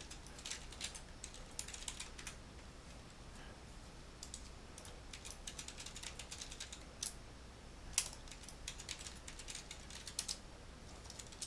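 Typing on a computer keyboard, entering login details: irregular runs of quick keystrokes with short pauses between them, and one sharper single click about eight seconds in.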